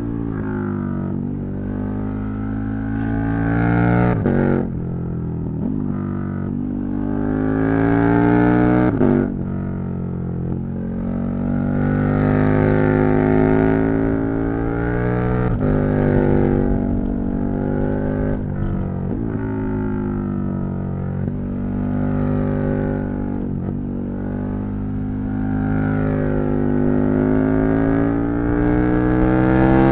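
KTM 1290 Super Duke R's V-twin engine pulling hard: its note climbs with the revs and drops sharply at each gear change or throttle lift, several times over, and is loudest near the end.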